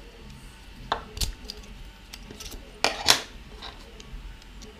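A 3D-printed plastic clamp with metal screws and bearings being handled: a handful of short, sharp clicks and taps, the loudest pair about three seconds in.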